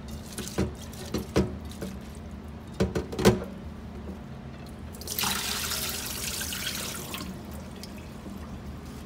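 Water running from a kitchen tap into the sink for about two seconds, starting about five seconds in and shutting off abruptly. Before it come a few sharp knocks and clicks of kitchen work, over a low steady hum.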